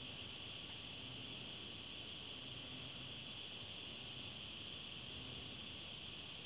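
Steady, high-pitched chorus of insects, unbroken and unchanging throughout.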